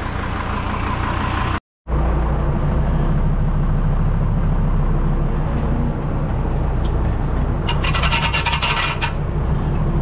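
Deutz DX90 tractor's air-cooled six-cylinder diesel running steadily as the tractor drives along, heard from the cab. A short metallic rattle comes about eight seconds in.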